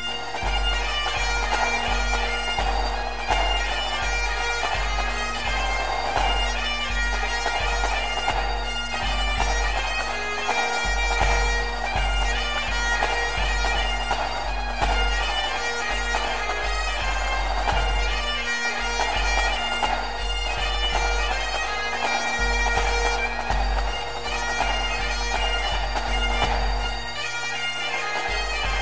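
Bagpipe music: a melody played over steady drones.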